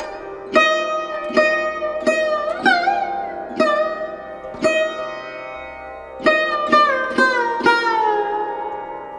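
Instrumental music: a plucked string instrument plays a slow melody of single notes, several of them bending in pitch, over a steady drone.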